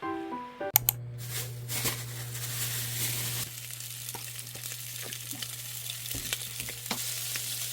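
Food sizzling in a frying pan, a steady hiss with scattered small pops over a steady low hum. The background music fades out just before the sizzling starts.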